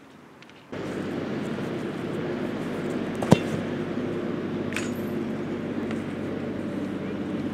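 A single sharp thump of a football struck hard for a knuckleball free kick, over a steady engine-like hum that starts abruptly about a second in. A fainter knock follows about a second and a half after the kick.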